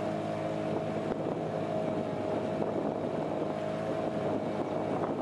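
Small motorboat's engine running at a steady speed: a steady whine over a lower hum, with wind and water hiss.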